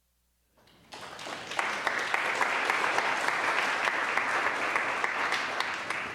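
Audience applauding, starting about half a second in and building over the next second to a steady, dense clapping.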